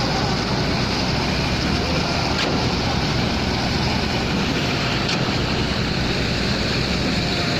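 Concrete-work machinery engine running steadily, a continuous low hum with a wash of mechanical noise and a couple of faint clicks.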